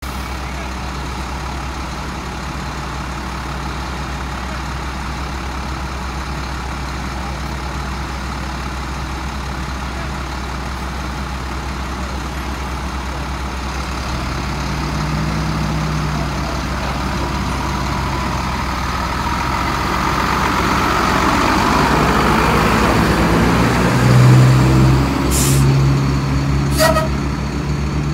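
Fire engine tanker's diesel engine running steadily, then growing louder and revving up over the last several seconds as the truck pulls away. A few short air-brake hisses come near the end.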